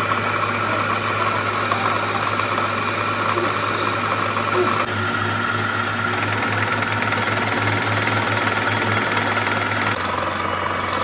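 Metal lathe running steadily, its cutting tool turning a small metal workpiece. The tone of the machining changes abruptly about five seconds in and again near the end.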